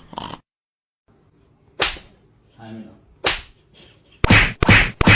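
Short sharp hits: one about two seconds in, another about three seconds in, then a quick cluster of four or five near the end.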